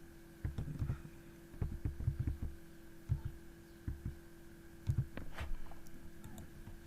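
A dozen or so soft, irregular low thumps with a few sharper clicks among them, typical of a computer mouse being clicked and moved on a desk, over a steady electrical hum.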